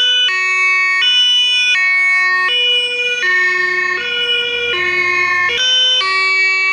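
German fire engine two-tone siren (Martinshorn, 'tatütata') sounding loudly, alternating between a lower and a higher note roughly every three quarters of a second.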